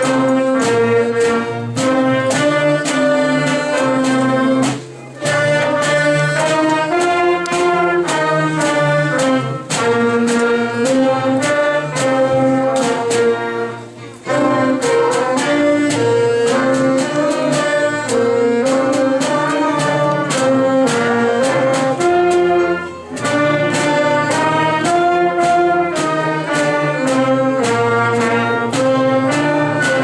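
A school wind band plays a tune together: saxophones, trumpets, trombone and low brass horns with flutes, clarinets and drums. There are three brief breaks between phrases, about 5, 14 and 23 seconds in.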